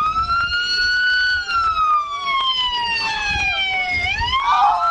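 Emergency vehicle siren wailing, its pitch climbing slowly, then falling over a few seconds and starting to climb again near the end. Close rustling and small knocks sound under it.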